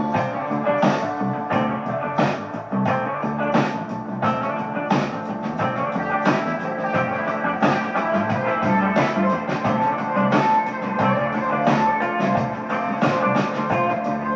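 Rock music with drum kit and guitar, played back through a single-ended 71A tube amplifier of about 0.7 W and its speaker; a strong drum hit lands about every 1.3 seconds.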